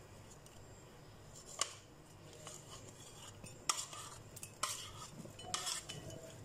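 Chopped salad being tipped and scraped from a bowl into a cut-glass serving dish: a handful of light clinks and scrapes of the bowl and utensil against the dishes, spaced a second or so apart.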